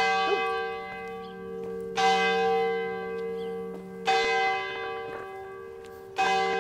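A single church bell tolling, struck four times about two seconds apart on the same note, each stroke ringing on and fading before the next.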